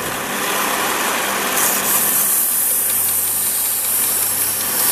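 Electric grinder running steadily with a low motor hum while it grinds a rough edge onto a blunt steel knife blade. A brighter hiss of metal being ground comes in about a second and a half in.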